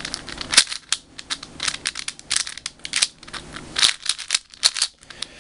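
Plastic layers of a MoYu WeiSu 4x4x4 speed cube being turned by hand: an irregular run of sharp clacks and clicks as layers snap through their turns, some forced through while others are offset to test corner cutting.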